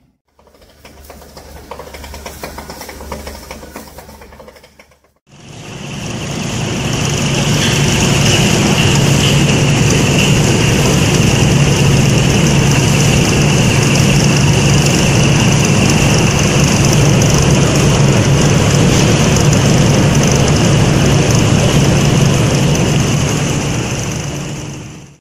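Drilling-waste processing machinery running. For the first five seconds a screw conveyor carrying drill cuttings gives a quieter low hum. After a cut, a vertical cuttings dryer runs loud and steady for about twenty seconds, with a strong low hum and steady high-pitched tones over it.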